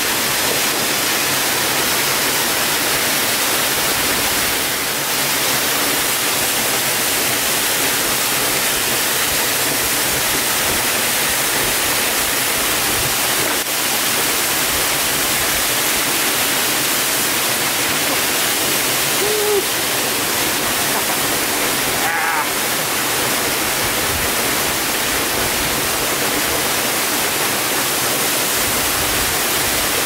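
An 80-foot waterfall plunging into its plunge pool: a steady, loud rush of falling water.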